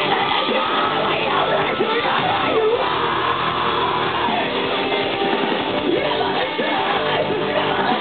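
Live rock band playing loud through a festival PA, electric guitars and drums with the crowd yelling and singing along, heard from within the audience.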